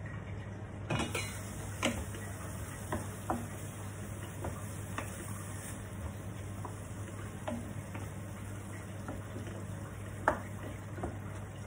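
Pork and sliced onion sizzling in a stainless steel pan, with a wooden spatula tapping and scraping against the pan at irregular moments as it stirs. A metal lid is lifted with a clatter about a second in, and the sharpest knock of the spatula comes near the end.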